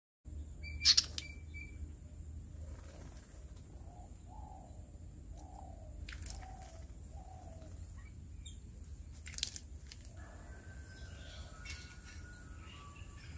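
Garden birds chirping and calling, with a run of about five short falling notes in the middle and thin whistled tones near the end. A few short splashes, the loudest about a second in, come from a common myna bathing and flapping in a birdbath, over a steady high hiss.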